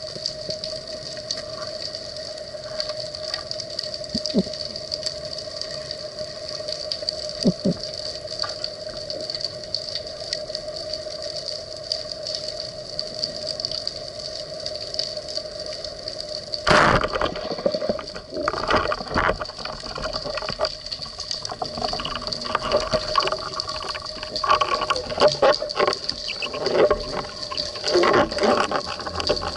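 Underwater noise with a faint steady hum. About seventeen seconds in, the sharp crack of a band-powered speargun being fired, followed by irregular knocks, clicks and water noise.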